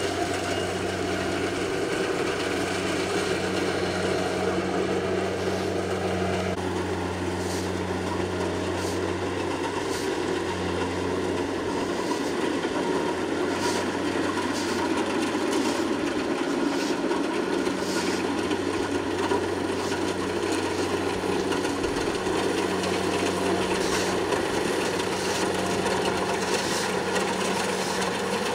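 Kubota combine harvester running steadily: a constant engine hum under an even, noisy rush from the working machine, with occasional faint ticks.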